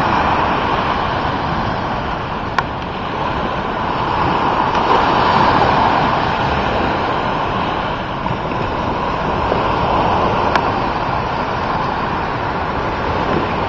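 Ocean surf washing up on a sandy beach, a steady rushing that swells a little midway, with wind on the microphone. Two brief sharp clicks stand out, one a few seconds in and one later on.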